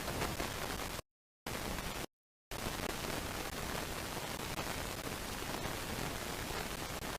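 Steady, even hiss from a nest camera's audio feed, cutting out to dead silence twice, each time for under half a second, about one and two seconds in.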